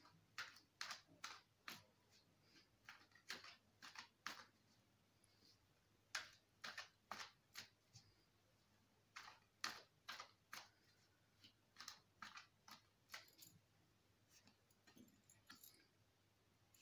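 Tarot cards being shuffled by hand: faint, irregular soft snaps and flicks of the cards, a few a second with short pauses.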